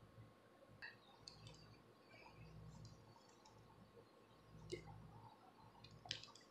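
Near silence broken by a few faint, sharp clicks and scratches: long acrylic fingernails and a fine-tooth comb scraping a dry, flaky scalp to lift dandruff flakes.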